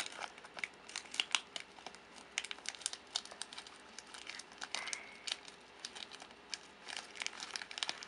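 Plastic packaging crinkling and nylon pouch fabric rustling as a packet of water purification tablets is worked into a small packed pouch, in irregular crackles, with a short squeak about five seconds in.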